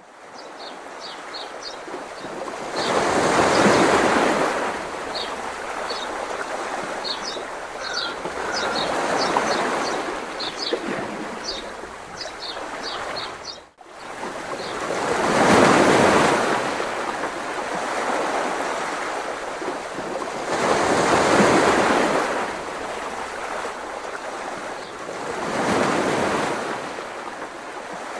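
Sea waves breaking and washing up a sandy beach, the surge swelling and fading about every five to six seconds. Faint high chirps sound over the first half.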